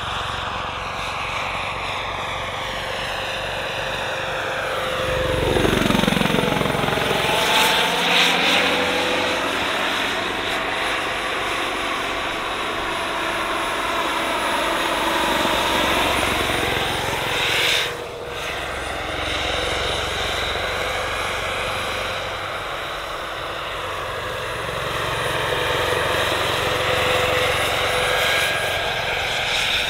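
Turbine engine and main rotor of a giant scale model Bell 206 JetRanger helicopter (3.3 m rotor) in flight: a steady turbine whine over rotor noise. It gets loudest as it sweeps close by about five to seven seconds in, its pitch falling as it passes, then it rises and fades as the helicopter moves around.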